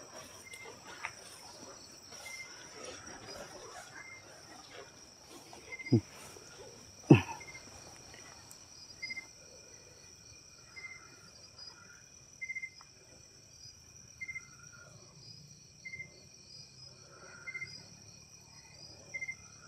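Night insects: a steady high trill with cricket chirps repeating about once a second. Two sharp knocks stand out, about six and seven seconds in.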